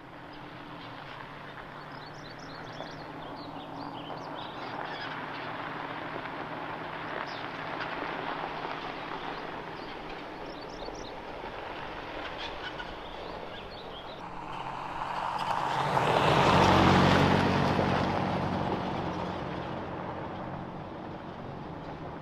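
Toyota Tacoma pickup driving on a gravel road, engine running steadily and tyres crunching on the gravel; it grows louder, passes close about three-quarters of the way through, then fades away. Faint bird chirps are heard in the first half.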